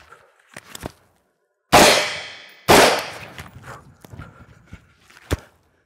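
Two AR-15 rifle shots about a second apart, each a sharp crack trailing off in an echo. A few light clicks come before and after.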